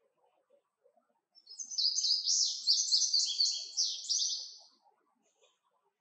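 Male indigo bunting singing one song of about three seconds: a quick series of high, sharp notes.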